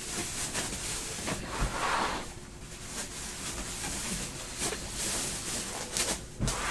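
Baseball trading cards and their pack wrappers being handled: rustling and crinkling, with short soft clicks as cards slide and tap against each other.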